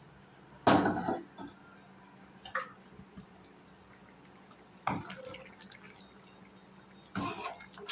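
Thin curry gravy simmering in a pan, with a few loud plopping bursts as large bubbles break, roughly every two seconds.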